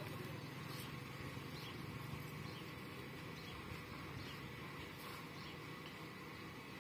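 Quiet outdoor ambience: a steady low hum with faint, scattered high chirps.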